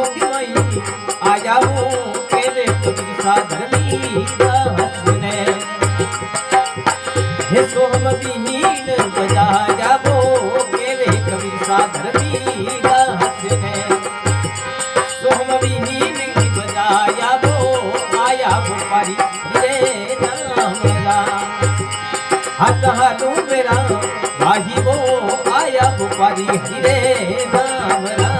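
Instrumental stretch of a devotional folk song (bhajan). A dholak keeps a steady beat of about one and a half strokes a second under a sustained harmonium melody.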